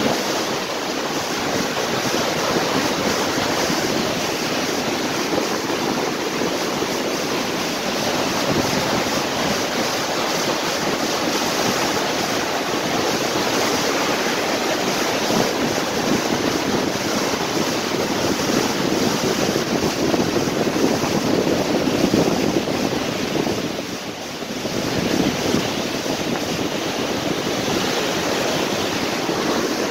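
Fast, flood-swollen mountain river rushing over rocks and rapids, a steady noise that dips briefly about 24 seconds in.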